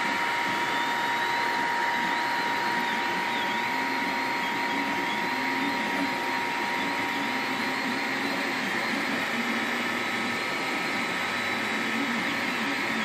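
MakerGear M2 3D printer running a print: its cooling fans whir steadily, while the stepper motors give a faint whine that shifts in pitch as the print head moves.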